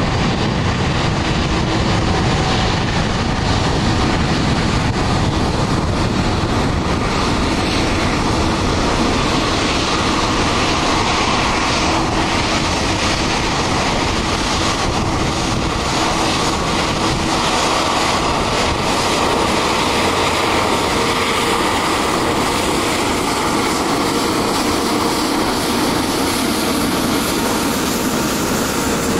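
Airbus A350-900's twin Rolls-Royce Trent XWB turbofans at takeoff thrust: a loud, steady jet roar through the takeoff roll and climb-out.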